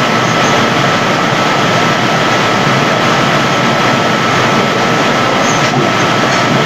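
Loud, steady hiss-like static with a thin, steady whine running through it, from a noisy audio feed; no speech comes through.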